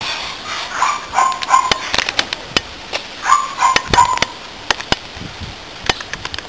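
A dog whining in two short bursts of high-pitched notes, about a second in and again about three and a half seconds in, with scattered sharp clicks throughout.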